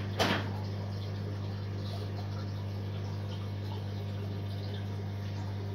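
Steady low hum from the aquarium's sump pump and filtration, with faint water trickling in the background. One short sharp noise sounds just after the start.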